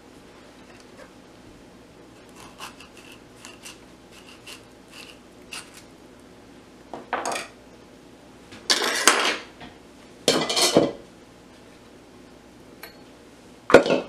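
Kitchen knife and avocado halves knocking and scraping on a wooden cutting board as avocados are cut open and pitted. Light clicks come first, then three louder scraping clatters in the second half, the last near the end.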